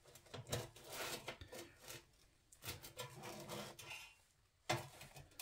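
Faint scraping and tapping of a slotted turner against an air fryer basket as a toasted sandwich is lifted to check its underside, with a sharper knock near the end.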